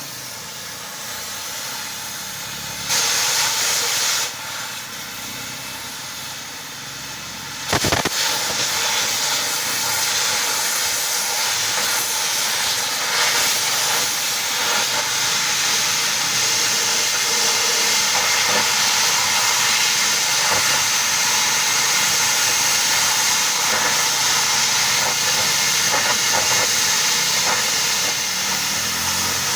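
A steady, loud hiss. It swells for about a second around three seconds in, drops back, then comes back louder from about eight seconds in and holds.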